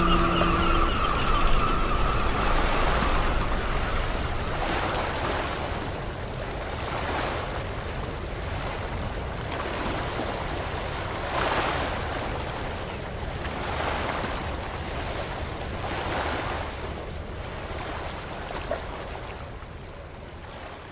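Ocean waves washing in, swelling in soft surges about every two seconds, slowly fading out toward the end.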